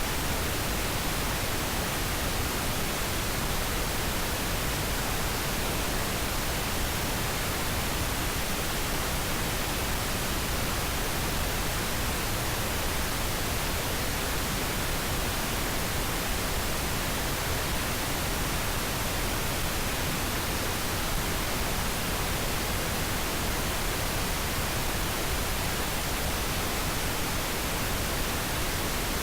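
Steady pink noise: an even, unbroken hiss spread across the whole range of pitch, with no change in level.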